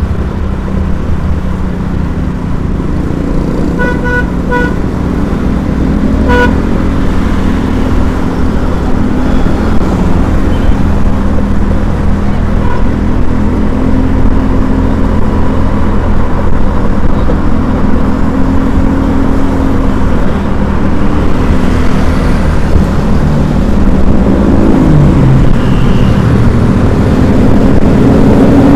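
Steady vehicle engine and road noise in traffic. A horn beeps twice in quick succession about four seconds in, and once more a couple of seconds later.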